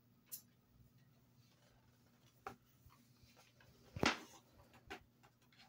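Pages of a children's picture book being handled and turned: a few short papery rustles, the loudest about four seconds in.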